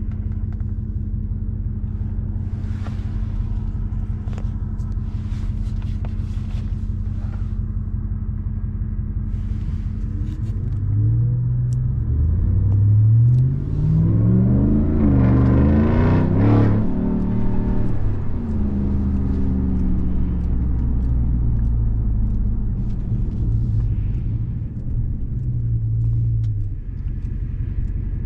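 2021 RAM 1500 TRX's supercharged 6.2-litre V8 running with a steady low drone, then accelerating hard from about eleven seconds in, its pitch climbing through several gear changes before it eases off and settles back to a steady cruise. A few faint clicks sound in the quieter first part.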